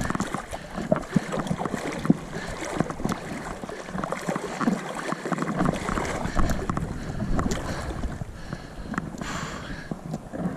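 River water sloshing and splashing around a wading angler, with many irregular small knocks and splashes.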